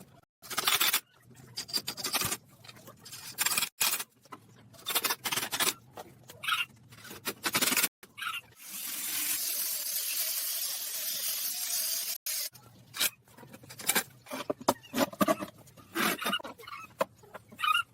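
Irregular rubbing and scraping strokes on wood. About halfway through they give way to a steady hiss that lasts about four seconds.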